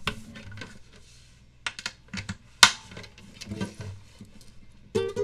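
Acoustic guitar being picked up and handled: scattered clicks and knocks against its body and strings, the loudest a sharp knock about two and a half seconds in. A chord is strummed on it right at the end.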